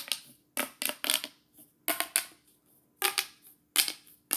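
A plastic fidget toy being worked by hand, giving sharp clicky crackles in quick bunches of a few snaps, about one bunch a second.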